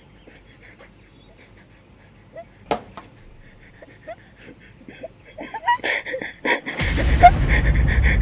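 Several seconds of faint scattered clicks and short chirps, then soundtrack music comes in loudly about seven seconds in, with a deep bass and a fast repeating high pulse.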